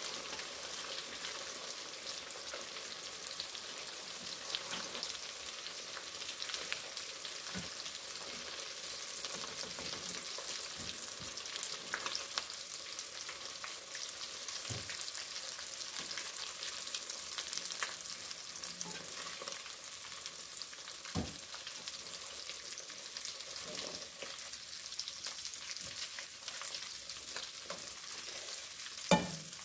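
Beef pieces sizzling and crackling steadily as they fry in shallow oil in a karahi, browning until crisp. Metal tongs knock against the pan now and then, the sharpest knock coming near the end.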